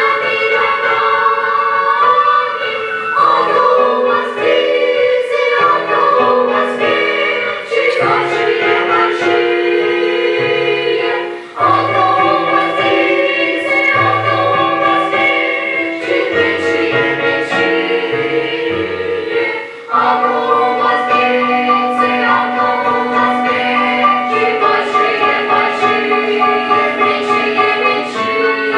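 Choir singing with instrumental accompaniment, with sustained notes over a moving bass line and a steady beat.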